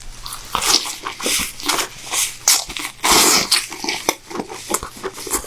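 Close-up chewing and wet mouth sounds of someone eating tingmo bread dipped in beef curry, in irregular short bursts.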